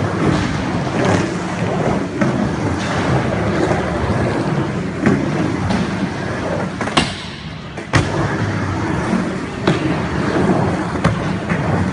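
Skateboard wheels rolling through a skatepark bowl, a steady rumble broken by several sharp clacks of the board striking the surface or coping. About seven seconds in, a loud clack is followed by under a second of quieter rolling, then another sharp knock.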